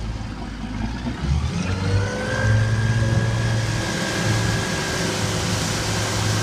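Motorboat engine opening up under full throttle to pull a water skier up from a deep-water start, its drone rising in pitch and loudness over the first couple of seconds and then holding steady, over a rush of water from the wake.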